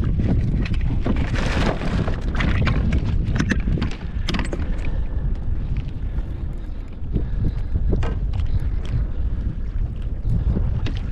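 Wind buffeting the microphone on a kayak at sea, a steady low rumble, with irregular short splashes and knocks of water against the kayak.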